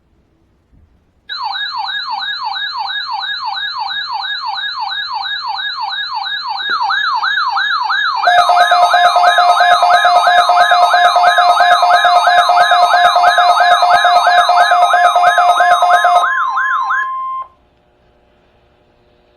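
Several emergency alert receivers sounding at once for a weather radio weekly test. A fast warbling alarm tone, about three or four sweeps a second, starts about a second in. A second warble joins around seven seconds in, and steady alert tones join about eight seconds in, making it much louder. Most stop about sixteen seconds in, and the last steady tone cuts off a second or so later.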